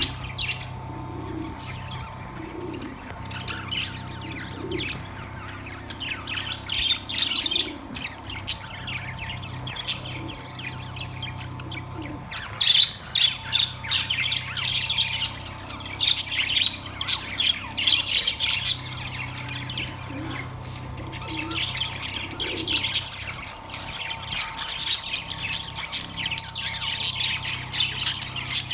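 A group of budgerigars chattering, with many overlapping quick chirps and squawks that grow busier and louder about halfway through. A steady low hum runs underneath.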